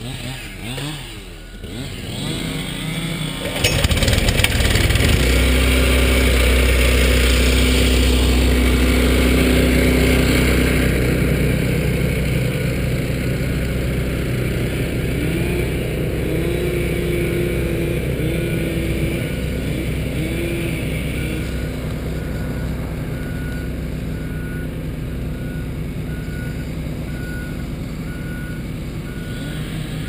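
Bulldozer's diesel engine running, coming in loudly about three and a half seconds in, with a few rising and falling whines in the middle. Its backup alarm beeps steadily through the second half.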